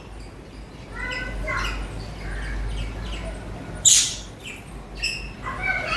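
Budgerigars chattering and chirping in short warbled calls, with one loud, sharp squawk about four seconds in.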